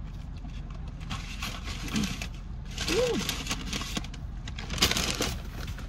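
Steady low hum of a car idling, heard from inside the cabin, with short rustling noises about one, three and five seconds in and a brief voice sound about three seconds in.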